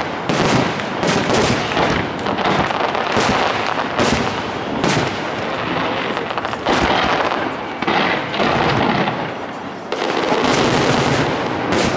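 Aerial fireworks shells bursting in a dense barrage, many bangs overlapping with hardly a pause, easing off briefly near the end before another cluster of bursts.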